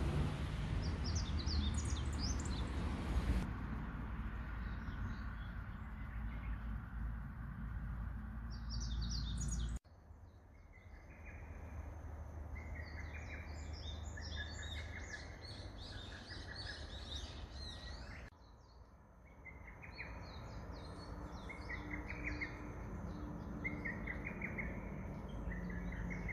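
Birds chirping in many short, quick calls, some high and some lower and trilled. A low rumble underlies roughly the first ten seconds and then stops abruptly.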